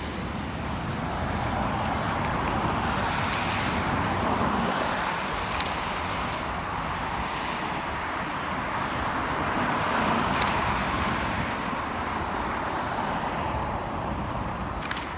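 Road traffic on a multi-lane freeway: steady tyre and engine noise that swells and fades as cars pass, with a few sharp clicks.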